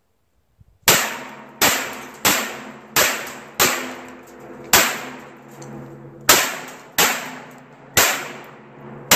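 A string of about ten shots from a 9mm rifle (pistol-caliber carbine), starting about a second in and coming roughly one every second or less, with a slightly longer pause in the middle. Each shot is a sharp crack followed by a short fading echo.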